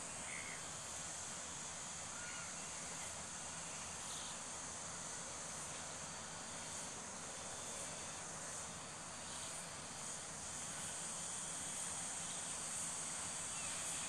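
A steady, high-pitched chorus of insects that goes on without a break, with a few faint short chirps near the start.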